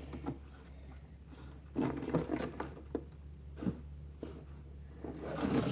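A spoon stirring thick slime in a bowl: a few short, soft, irregular handling noises over a steady low hum.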